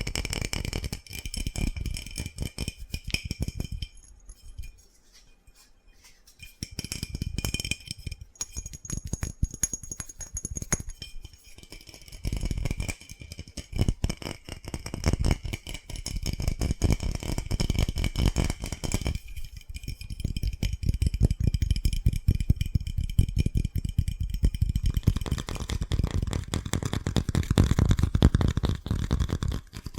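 Fast, aggressive tapping with fingers or fingernails on a hard object, a dense rapid rattle of taps. It pauses briefly about four seconds in and picks up again.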